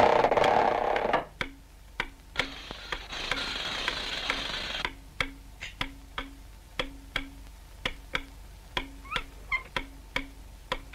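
Cartoon sound effects. A loud rushing noise stops about a second in and gives way to a string of sharp clicks, about three a second, each with a short low note. A hiss runs in the middle, and a few short squeaks come near the end.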